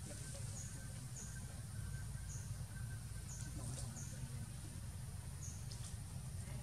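Forest ambience: a short, high, falling chirp repeated roughly once a second from an insect or small bird, over a steady low rumble.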